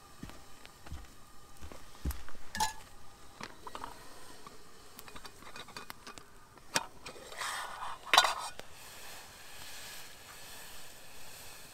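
Scattered light knocks, clinks and scrapes of gear being handled. There is a short ringing metallic clink about two and a half seconds in, and a louder scraping rustle around eight seconds.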